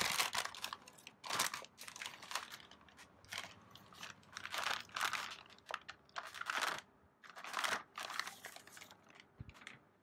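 Graphics card packaging crinkling and rustling as the card is unwrapped and lifted out of its box: irregular rustles and crunches that stop shortly before the end.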